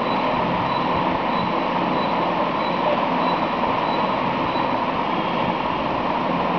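Steady rushing background noise with a faint high whine, even throughout with no distinct clicks or events.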